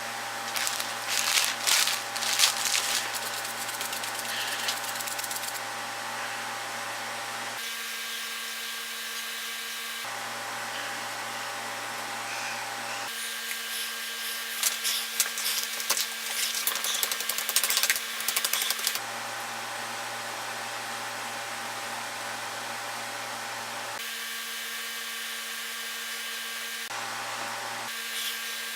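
A steady mechanical hum like a kitchen fan or appliance, with two bouts of crinkling and rustling from food and wrapping being handled, the first right at the start and the second about halfway through.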